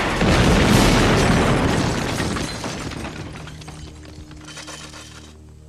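A loud explosion from a cannon shot in a film soundtrack: a big blast that rumbles and fades away over about four seconds. Music with held notes comes in underneath as it dies down.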